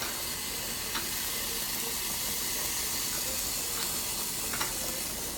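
Hamburger steaks sizzling in a cream gravy in a cast-iron skillet: a steady, even hiss with a few faint ticks.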